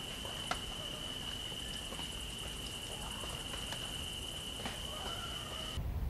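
Forest ambience: a steady high-pitched insect drone with a few short, sharp bird chirps. It cuts off abruptly near the end and gives way to a duller low rumble.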